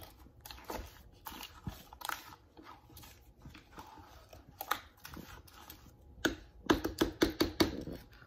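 Handling of a plastic blender jar on its base: scattered clicks and taps, then a quick run of louder knocks about six and a half seconds in. The blender motor is not running.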